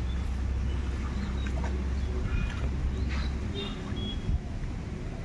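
Wind buffeting the microphone in a low rumble that eases about three and a half seconds in, with short high bird chirps and light splashing of feet wading through a flooded field.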